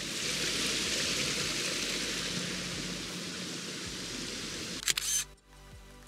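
Waterfall rushing with a steady noise of falling water. About five seconds in come a couple of sharp clicks, then the water sound cuts off suddenly and quiet background music follows.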